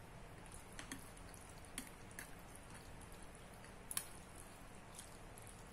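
Quiet eating sounds: chopsticks working noodles in a stainless-steel bowl, with a few light, sharp clicks, the loudest about four seconds in.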